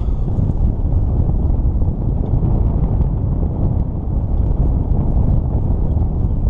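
Wind buffeting the microphone over the steady rumble of a boat under way.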